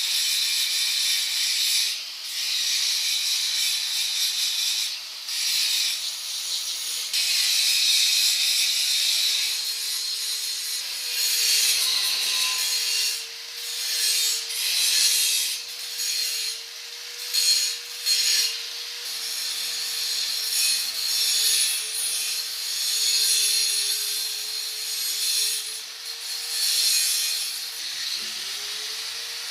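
Angle grinder grinding on a steel frame: a steady motor whine that sags a little under load, with a rough grinding hiss that swells and drops as the disc is pressed on and eased off.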